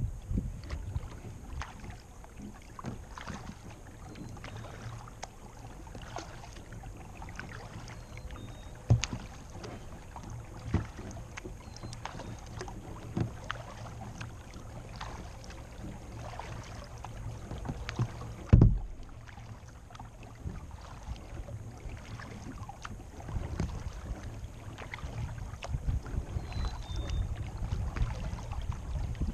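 Kayak paddling on a creek: the paddle dipping and water splashing and dripping in a loose irregular rhythm, over a low rumble. A sharp knock about nine seconds in and a louder thump about eighteen and a half seconds in.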